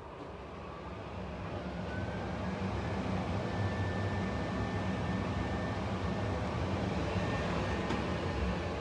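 Bosch DFR067A52 cooker hood's extractor fan running up to speed over the first two seconds, then blowing steadily with a faint high motor whine over the rush of air.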